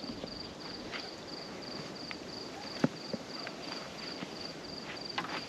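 A cricket chirping steadily, a short high chirp about three times a second, over scattered clicks and scuffs of footsteps and gear being handled; one sharp click a little before three seconds in is the loudest sound.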